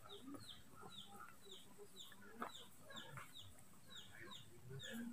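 Chicks peeping faintly in a steady run of high, falling peeps, two or three a second, with a few soft low clucks from the hens.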